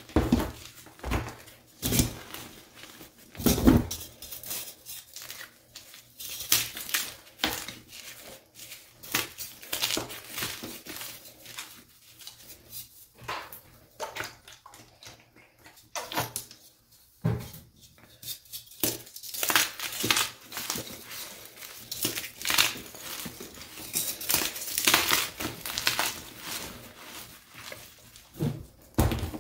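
Hands crushing and crumbling blocks of plain white and pink-dyed gym chalk into powder and shards: irregular dry crunches and crackles, with the crumbly rustle of loose chalk between them.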